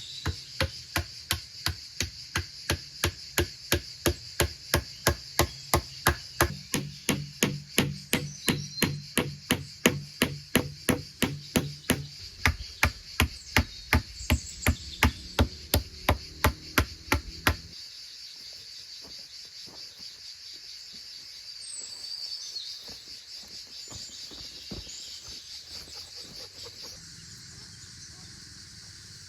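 A fast, even series of sharp blows, about three a second, that stops suddenly about two-thirds of the way through. Crickets or other insects chirr steadily throughout.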